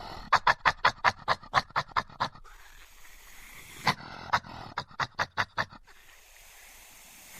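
Badger calling in quick runs of short, sharp calls, about five a second, in two bursts with a pause between.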